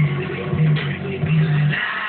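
A song playing through a pair of Art and Sound stereo water speakers, with a low bass note repeating about every half second.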